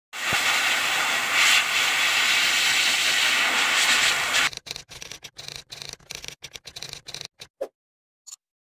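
Handheld pet grooming blower running with a loud, steady hiss of air blowing into a dog's thick coat. About four and a half seconds in the hiss breaks up into short, choppy fragments for a few seconds, then stops.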